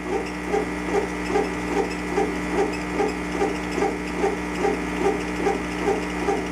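CO2 laser engraver raster-engraving a wooden dowel on a rotary adapter: the laser head's stepper-driven carriage sweeps back and forth, giving a regular whirring pulse about two and a half times a second. A steady machine hum runs underneath.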